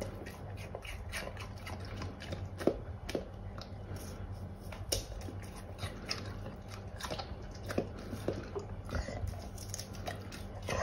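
Golden retriever biting and chewing pieces of raw pear, with irregular crisp crunches throughout.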